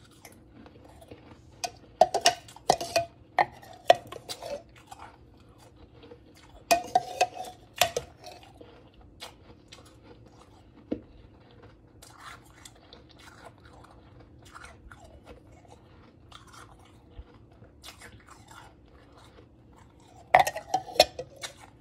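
Close-up chewing and crunching of powdery blended ice, in three bursts of crackly crunches: a couple of seconds in, about seven seconds in, and near the end. Faint crackles come between the bursts. A metal spoon scrapes in the plastic blender jar near the end.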